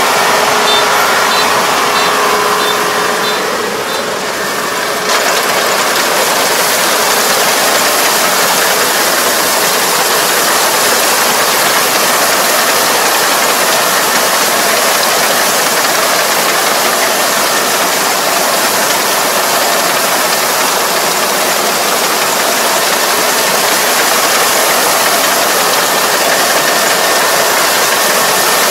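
Combine harvester running steadily, a dense, even engine and machinery noise, with a brief dip in level about four seconds in.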